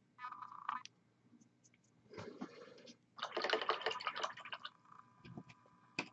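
A few short bursts of clicking and rattling, with near silence between them: small hard objects being handled at a work table.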